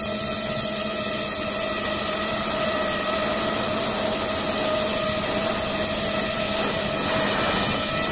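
DJI FPV drone's motors and propellers whining at a steady pitch over a constant rushing hiss, heard from a camera mounted on the drone itself.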